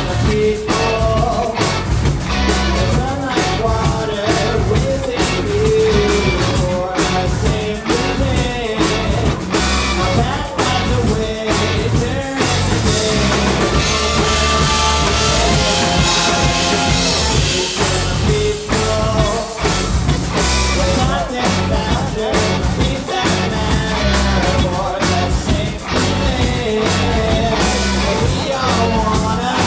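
Live rock band playing loud and steady: electric guitar, bass guitar and a drum kit, with a man singing over them.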